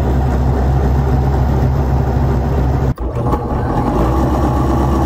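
Half-horsepower 110-volt electric motor spinning a rewound alternator at about 1700 RPM, running with a steady hum. The sound drops out for an instant about three seconds in, then goes on the same.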